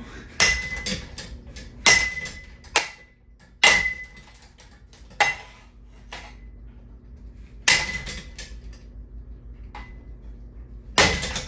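Metal parts of a ceiling fan being smashed: about seven heavy, irregularly spaced blows that clank, several leaving a brief metallic ring.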